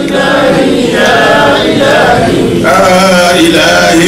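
Men's voices chanting devotional Arabic verses in a sustained, melodic line.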